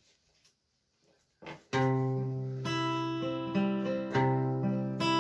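Acoustic guitar strummed in slow, ringing chords. It comes in about a second and a half in, after near quiet with a few faint clicks, and the chords are struck again every second or so.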